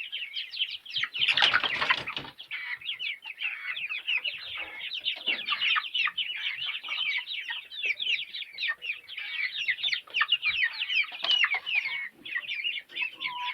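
A flock of young chickens peeping continuously, a dense stream of rapid, high, downward-sliding peeps. A loud, brief rustle comes about a second in.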